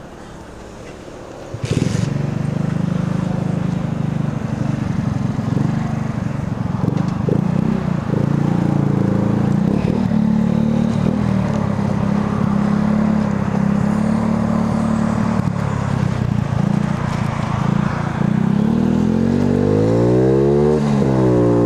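Motorcycle engine starting about two seconds in, then running steadily. Near the end it speeds up, its pitch climbing, dipping sharply once, then climbing again.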